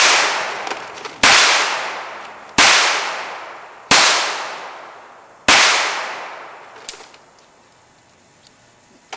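Handgun shots fired in a steady string, five about 1.3 seconds apart, each sharp crack trailing off in a long echo. The shooting stops a little past halfway.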